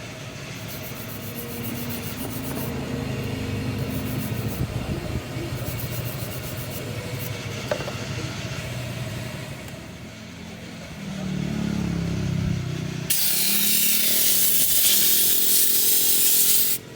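Vespa PX single-cylinder two-stroke engine running unevenly, its pitch rising and falling, picking up about eleven seconds in. A loud hiss starts about thirteen seconds in and cuts off suddenly near the end.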